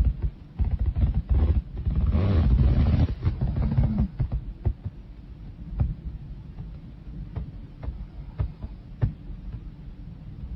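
A woman snoring loudly: a long rattling snore in the first few seconds, then a quieter low rumble with scattered small clicks.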